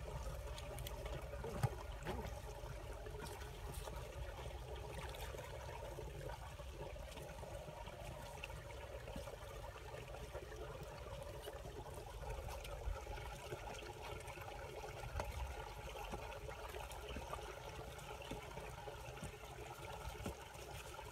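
Water trickling steadily, with faint scattered knocks and scrapes from a metal bar digging in wet mud.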